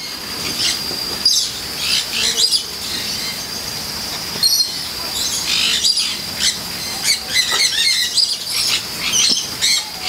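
Birds chirping and twittering in many short, quick high calls that come in clusters, over a steady thin high-pitched tone.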